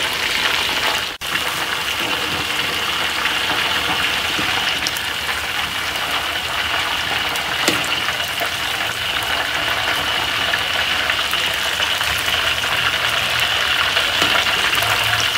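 Chicken wings deep-frying in a wok of hot oil: a steady bubbling sizzle that briefly cuts out about a second in.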